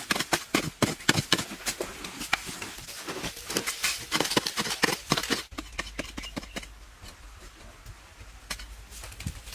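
Close-miked eating: dense crunching and crackling chewing sounds, thinning out to sparser, quieter clicks after about five and a half seconds.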